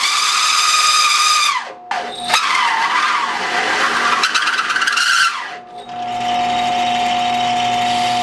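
Milwaukee bimetal hole saw in a 1/3 hp benchtop drill press cutting quarter-inch steel plate, giving a loud high-pitched squeal that wavers in pitch and breaks off briefly about two seconds in. From about six seconds in, the squeal stops and the drill press motor runs on with a steady, even hum and whine.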